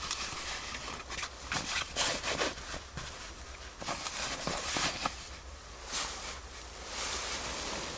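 Irregular rustling and scraping, with a few short knocks.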